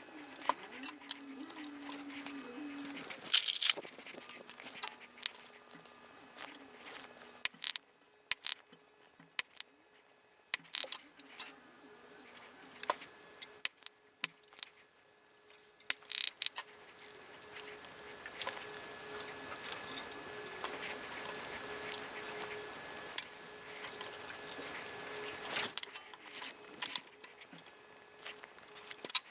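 Scattered small clicks, taps and light metallic clinks of tools and small parts being handled on a workbench while replacement bulbs are fitted. Through the second half a steady faint hiss with a low hum runs, then cuts off suddenly near the end.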